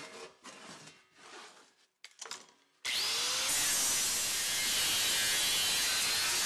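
A sheet-metal panel scraping and rubbing as it is shifted on a wooden bench, then an angle grinder switched on about three seconds in. Its whine rises as the motor spins up, and it then runs at a steady, loud pitch as it grinds the metal.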